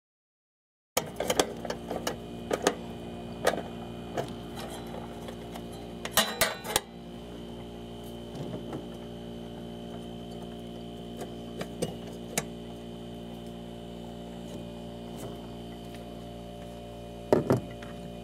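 Irregular small metallic clicks and clatter of tools and parts being handled during reassembly of a propane water heater's igniter and burner. They sound over a steady low hum of several tones, with a cluster of clatter about six seconds in and another near the end.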